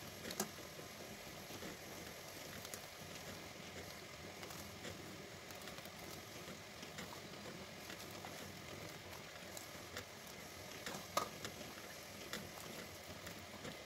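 Pot of water at the boil, bubbling steadily while homemade noodles are dropped in and stirred with a spatula. A few sharp clicks of the spatula against the pot, the loudest about eleven seconds in.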